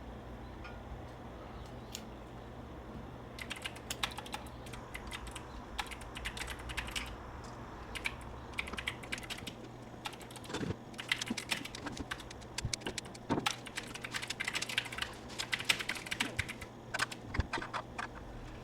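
Hand pruning shears snipping Kaizuka juniper twigs: quick, irregular clicks and snips in clusters, starting a few seconds in.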